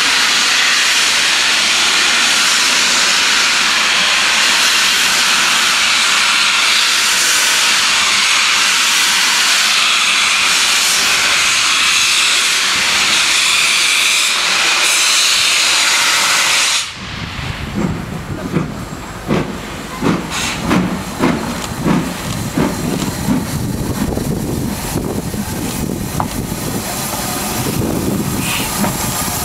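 LNER B1 steam locomotive No. 61264 letting off a loud, steady hiss of steam that stops suddenly a little over halfway through. A series of exhaust chuffs follows as the engine starts to move.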